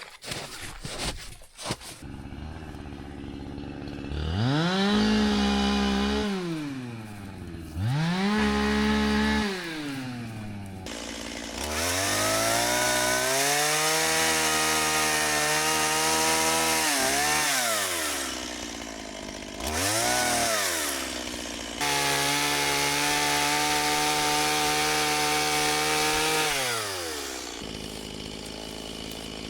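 Gas chainsaw cutting through fallen timber, throttled up to full speed five times and dropping back to idle between: two short runs, one long one of about six seconds, another short one, then a long one of about five seconds.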